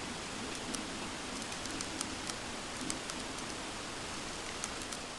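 Steady hiss with a few faint, scattered ticks.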